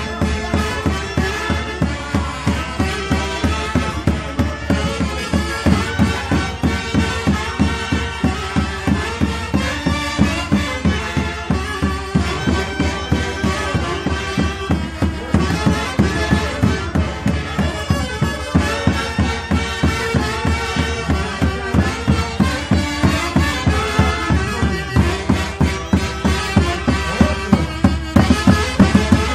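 Live Andean orquesta típica music for a Santiago dance: reed wind instruments playing a melody over a steady, even drum beat.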